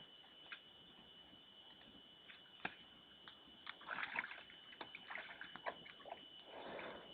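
A bear splashing and sloshing water in a food hole as it digs for food. Faint wet splashes and scattered clicks, a little louder about four seconds in and again near the end.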